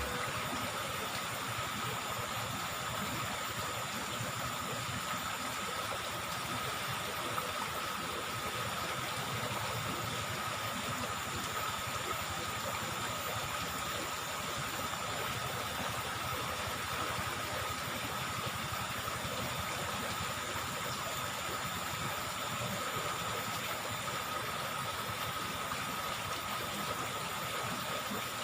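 Steady rush of flowing river water, with a faint, even high-pitched tone running over it.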